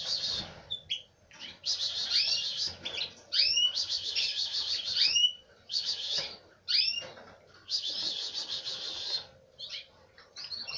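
Nestling canaries begging as they are hand-fed: repeated bouts of shrill, raspy cheeping about a second long, with short rising chirps among them and brief pauses between bouts.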